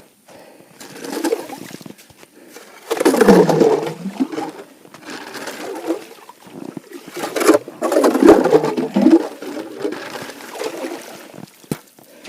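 Water splashing and sloshing in an ice-fishing hole in irregular bursts, loudest about three seconds in and again about eight seconds in.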